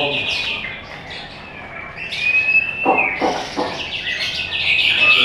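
White-rumped shama (murai batu) singing a fast run of repeated notes in the 'trotol' style. There is a clear held whistle about two seconds in and a few short sharp clicks around three seconds, then another rapid run near the end.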